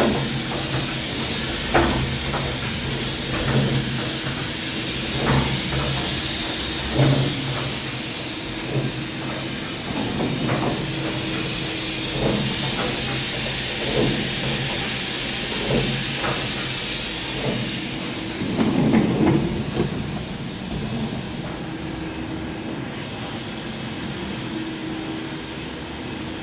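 Chip conveyor and chip augers of a Doosan DNM 500 II vertical machining center running: a steady motor hum and hiss with irregular metallic clanks every second or two.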